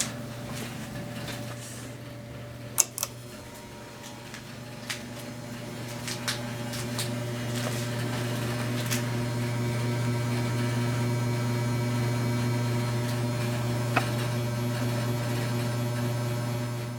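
Cast-iron motor of a 1999 Hunter Original ceiling fan humming steadily, the hum growing louder from about four seconds in and then holding. The testers first took this hum for a fault. A few sharp clicks sound, a pair about three seconds in and one near the end.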